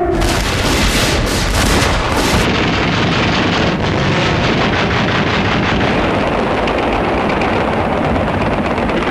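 Anti-aircraft gunfire and shell bursts: rapid sharp shots for the first two and a half seconds, then a dense, continuous barrage noise.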